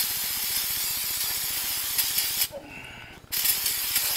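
Aerosol brake cleaner spraying from a can onto mower transmission gears: a steady hiss, broken off for under a second about two and a half seconds in, then resumed.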